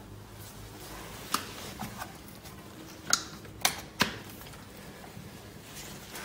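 Hard plastic clicks and knocks as a blue CEE 32 A commando adapter tail is fitted onto a Tesla Gen 2 mobile charger: a few scattered sharp clicks, the loudest three close together between about three and four seconds in.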